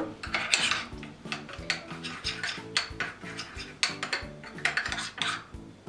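Metal spoon stirring a thin flour-and-water paste in a small ceramic bowl, scraping and clinking against its sides in quick irregular strokes, over quiet background music.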